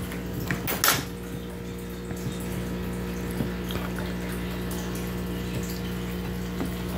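A plate set down on a table with a knock, then a dog eating pizza scraps off it: faint chewing and licking over a steady hum.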